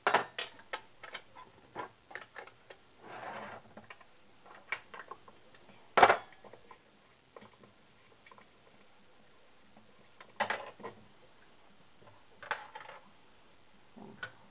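Scattered clicks, knocks and light metallic clinks of a McCulloch chainsaw engine's parts being handled by hand, the engine not running; the loudest knocks come at the very start and about six seconds in.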